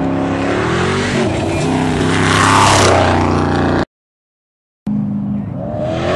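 Off-road desert race vehicle's engine revving hard as it passes close, loudest about two and a half seconds in, with a rush of noise. The sound drops out completely for about a second about four seconds in, then engine revving comes back.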